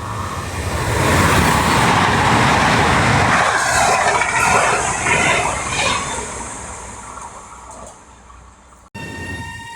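A train passing close by: a loud rush of wheel and air noise that builds over about a second, holds, then fades away. Near the end a short whine rises slowly in pitch.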